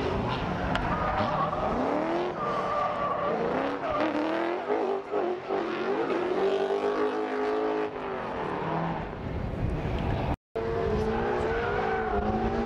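Drift cars at full throttle, engines revving up and down as they slide, with tyres squealing. The sound cuts out for an instant near the end.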